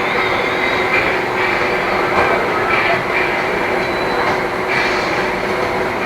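Steady, loud mechanical running noise with a constant high-pitched squeal, a low hum and a few faint clicks.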